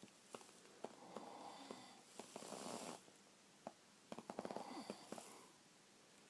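Sleeping person snoring faintly with sleep-apnea snoring: breathy in-and-out swells, then a rattling snore about four seconds in, with quiet gaps between breaths.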